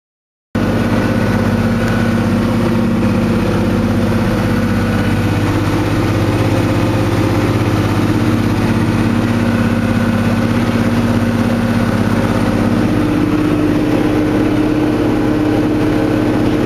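John Deere four-wheel-drive tractor's diesel engine running steadily, heard from inside the cab during field work. It starts suddenly about half a second in, after silence.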